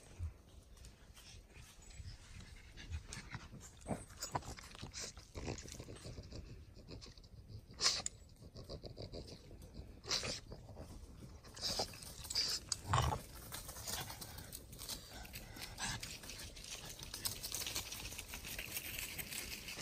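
A small black dog panting, and Nigerian dwarf goats' hooves scuffing and rustling on a sandy, leaf-strewn dirt road, with a few short sharp noises, the loudest about eight seconds in. The rustling thickens near the end as the goats pass close by.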